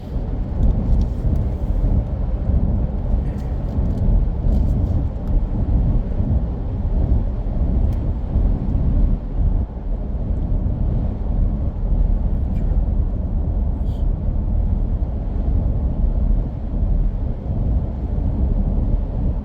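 Loud, steady low rumble with an uneven, buffeting texture and no clear pitch, starting abruptly.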